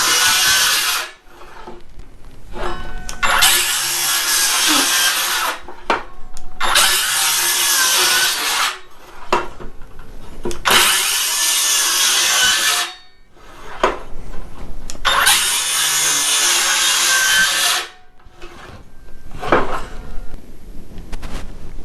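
FLEX in-line drive circular saw cutting wood in a series of cuts. One cut ends about a second in, then four more follow, each lasting two to three seconds. Light knocks fall in the short pauses between cuts.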